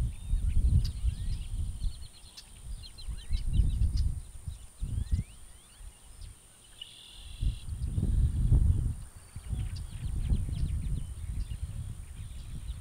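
Outdoor ambience: small birds chirping and giving short trills over low, irregular rumbling swells that come and go every few seconds.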